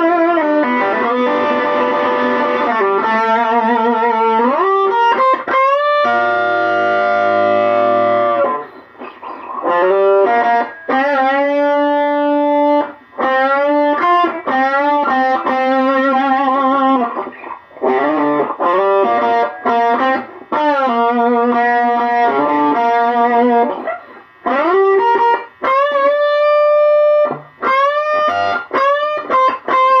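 Electric blues guitar lead on a Donner DJP-1000 semi-hollow played through a Monoprice Stage Right 5-watt tube amp: sustained single notes with string bends and wide vibrato, a held chord about six seconds in, and short gaps between phrases.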